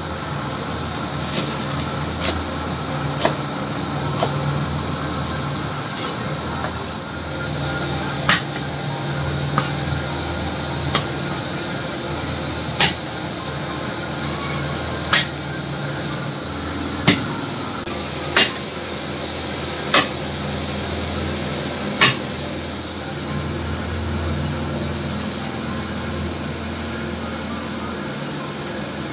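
Chinese cleaver chopping red onion and garlic on a wooden cutting board: a dozen or so sharp knocks of the blade on the board, irregularly every one to two seconds, over a steady low hum.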